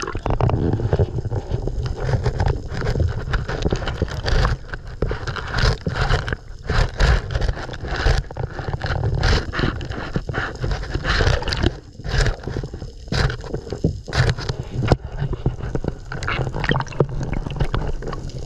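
Sea water gurgling and sloshing around a camera held just under the surface, with irregular splashes and knocks.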